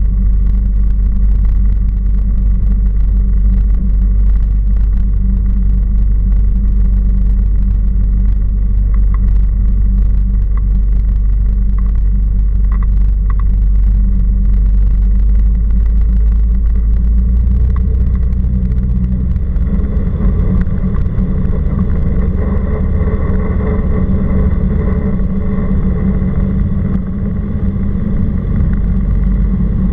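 Cessna 172R Skyhawk's four-cylinder Lycoming engine and propeller running steadily, heard from inside the cockpit. About two-thirds of the way in the engine note turns fuller and rougher as power is added.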